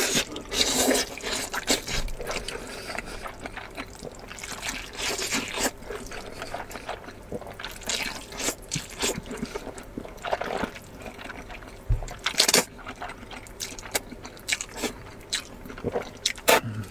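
Nanchang mixed rice noodles worked with chopsticks: irregular wet, saucy squishing sounds with sharp little clicks.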